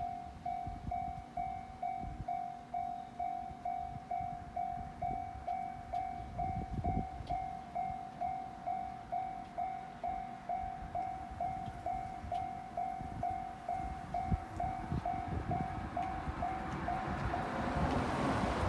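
Japanese railroad level-crossing alarm ringing its steady electronic 'kan-kan' tone, about two strokes a second. Near the end the rising noise of an approaching train builds over it.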